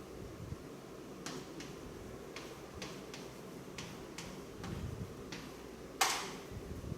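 Calculator keys being pressed: about ten short, light clicks at an uneven pace, followed near the end by one louder, brief rushing noise.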